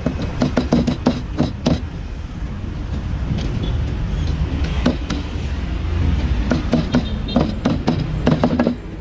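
A cleaver chopping meat on a wooden block in quick runs of strikes, about five a second, over a steady low rumble of street traffic.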